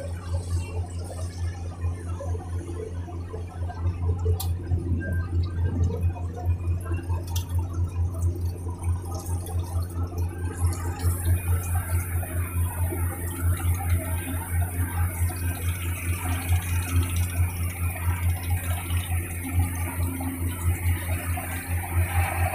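A riverboat's engine running steadily with a low, even throb. About halfway through, a steady high hiss joins it.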